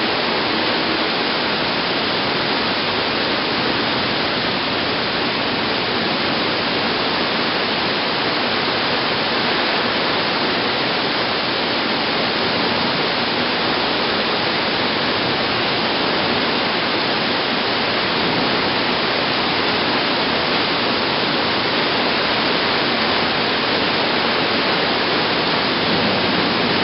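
Torrential wind-driven rain from a supercell thunderstorm, pouring down in a loud, steady, unbroken rush.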